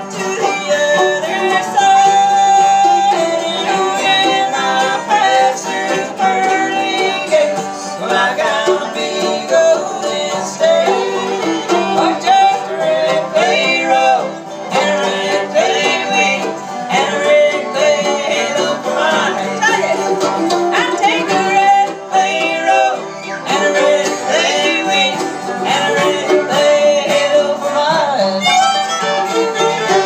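Bluegrass band playing an instrumental tune on fiddle, banjo and guitars.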